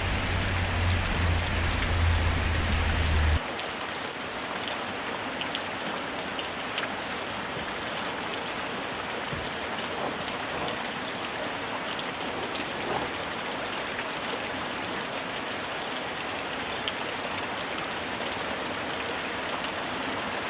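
Steady rain falling, with scattered drops tapping. A low rumble under the rain stops abruptly about three seconds in, and the rain goes on a little quieter.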